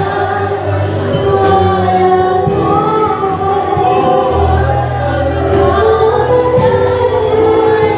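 Worship song sung by a group of voices over instrumental accompaniment, with long held notes and a steady low bass line.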